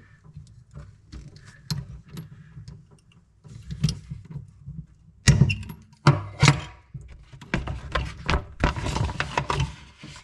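Irregular clicks, knocks and clatter of hand tools being handled, a PEX cutter among them, with a denser stretch of scraping and rustling near the end.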